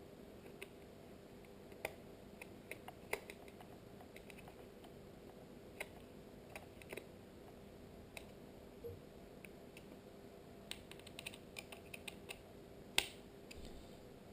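Small screws being driven into a plastic IP camera housing with a small screwdriver: faint, irregular clicks and ticks of the tool and plastic parts, with a sharper click about 13 seconds in. A faint steady hum runs underneath.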